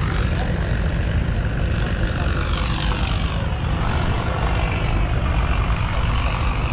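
Fordson Power Major's 3.6-litre four-cylinder diesel engine running steadily, with a higher whine rising and falling over it midway through.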